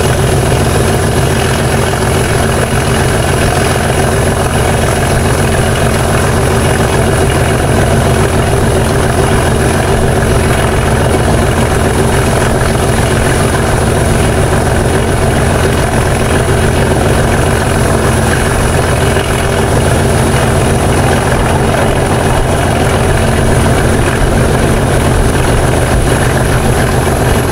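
English Electric Class 37 diesel locomotive's V12 engine working under power, a steady, loud, low pulsing beat that holds without easing.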